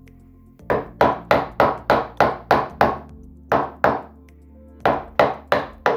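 Hammer blows on wood, sharp and evenly paced at about three a second, in three runs: eight strikes, then two, then four.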